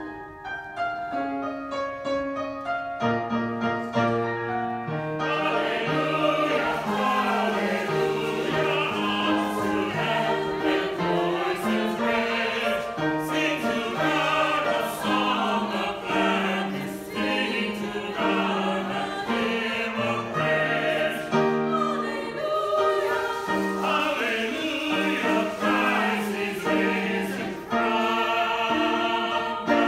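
Mixed church choir singing an Easter anthem with piano accompaniment. The piano plays alone for the first five seconds or so, then the voices come in.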